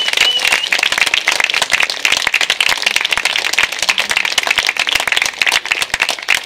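Audience applauding: dense, continuous clapping, with a short wavering whistle right at the start.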